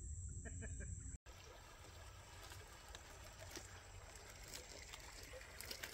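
Faint water trickling and dripping around a kayak, with small scattered ticks. About a second in, a low hum and a high steady whine cut off suddenly.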